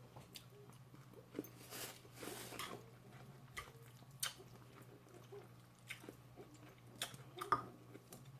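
Faint chewing and biting sounds of a person eating, with scattered small clicks and a couple of short, soft noisy bursts.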